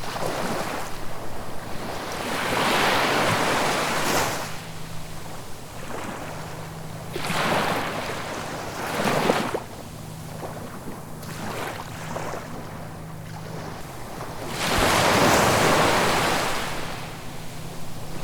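Ocean waves breaking and washing in as surf: a rushing wash that swells and falls back every few seconds, the biggest surge near the end.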